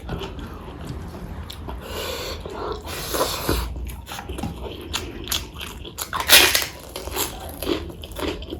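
Close-miked chewing and biting: wet mouth smacks and clicks of a person eating. A louder, noisy crunch comes a little after six seconds in.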